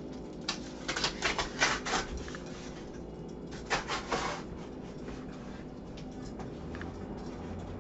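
A box knife slicing through the packing tape and cardboard of a box, in two runs of short scraping strokes: one about a second in, the other near the four-second mark.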